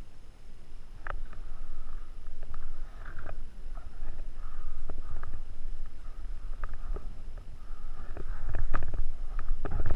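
Wind rumble and handling noise on a GoPro's microphone, with about a dozen scattered sharp pops and knocks that grow louder near the end.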